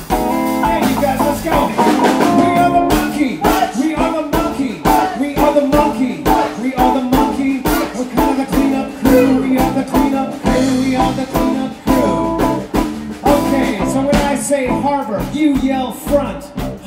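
Live band playing a blues-rock song: electric guitar over a steady drum beat, with a woman singing.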